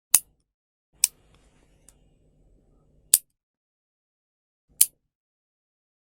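Nail clipper clicking shut four times at uneven gaps, each a short sharp snap. Faint handling noises run between the second and third clicks.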